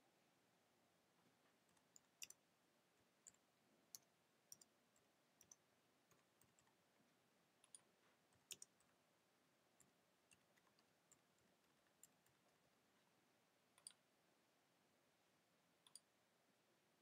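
Faint, irregular clicks of a computer keyboard and mouse during typing and clicking, some clicks coming in quick pairs.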